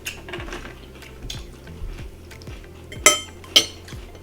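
Cutlery and dishes clicking and clattering during a meal, with scattered light taps and two sharp, louder clicks about half a second apart near three seconds in.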